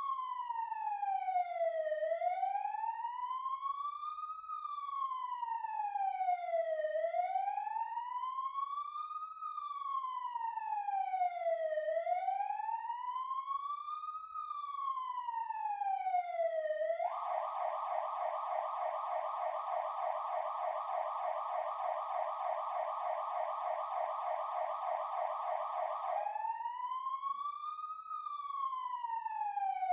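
Emergency vehicle siren in a slow wail, its pitch rising and falling about every five seconds. A little past halfway it switches to a rapid yelp for about nine seconds, then returns to the wail.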